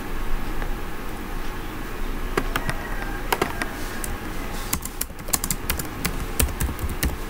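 Typing on a computer keyboard: a few separate key clicks, then quicker runs of keystrokes from about five seconds in.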